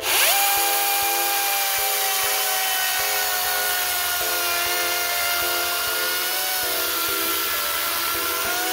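DeWalt 60V FlexVolt 16-inch cordless chainsaw spinning up with a quick rising whine, then running steadily as it cuts down through a log: an electric motor whine over the hiss of the chain in the wood.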